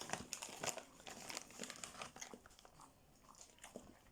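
Plastic dog-treat packet crinkling as it is handled, busiest in the first second and then thinning to scattered crackles.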